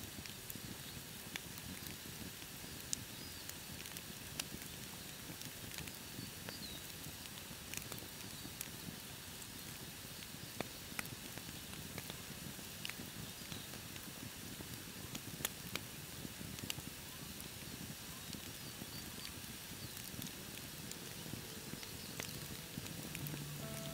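Wood campfire crackling, with irregular sharp pops and snaps over a soft steady hiss. Music fades in near the end.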